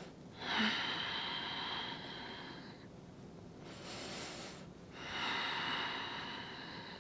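A woman's slow, deep breaths heard close up: three long breaths, the middle one quieter, taken while holding a supine yoga twist.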